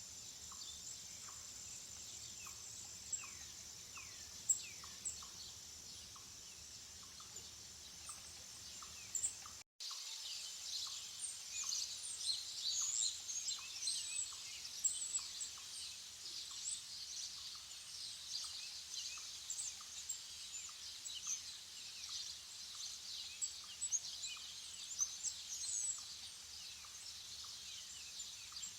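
Small birds chirping over a faint steady high hiss. The sound cuts out for an instant about ten seconds in, and after that the quick chirps become much denser and louder until near the end.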